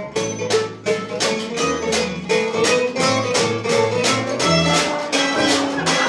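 Live acoustic swing band playing an instrumental passage: bowed fiddle over upright bass, with a steady beat of about three strokes a second.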